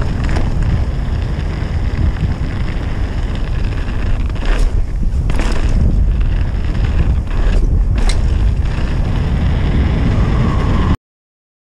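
Wind buffeting the camera microphone during a fast downhill mountain-bike descent, over a low rumble of tyres on a dirt trail, with a few sharp rattles from the bike. The sound cuts off suddenly near the end.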